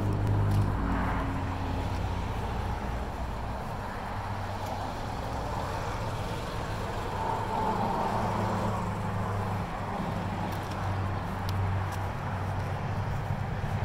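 A vehicle engine running at idle, a steady low hum that swells and fades a little, over outdoor traffic noise.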